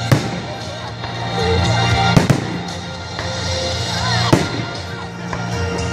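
Aerial firework shells bursting with sharp bangs: one just after the start, two in quick succession just after two seconds, and one past four seconds. Music plays throughout.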